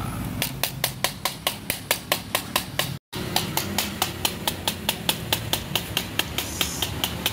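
Screwdriver handle tapping quickly and steadily on the plastic housing of a Nissan X-Trail T31 fuel pump module, about five sharp taps a second, with one brief gap about three seconds in. The tapping knocks caked dirt out of the pump's clogged filter so it can be cleaned.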